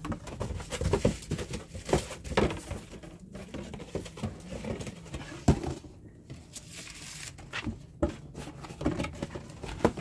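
Handling noise from objects being moved about on a desk, including a cardboard sound-card box: irregular taps, knocks and rustles, with one sharp knock about halfway through.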